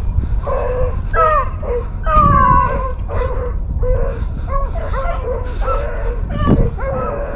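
A pack of hunting hounds baying on a rabbit's trail: many short, overlapping barks and yelps from several dogs, with one longer, falling bawl about two seconds in.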